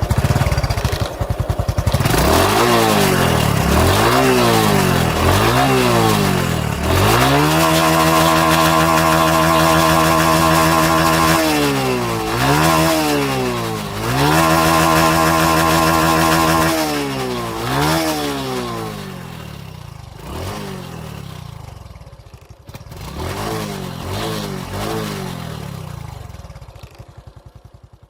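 Motorcycle engine revved repeatedly with the throttle: quick rising and falling blips, held at a steady high pitch twice for several seconds, then smaller, quieter blips that fade out near the end.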